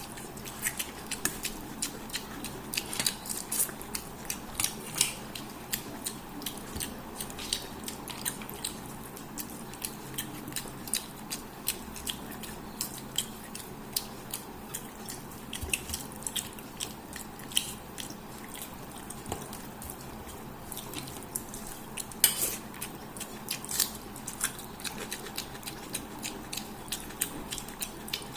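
Close-miked eating of fish head curry with rice: chewing and mouth sounds with many irregular sharp clicks.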